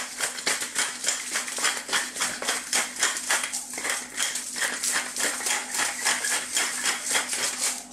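Pepper mill grinding black peppercorns: quick, even crunching clicks, about six a second, that stop near the end.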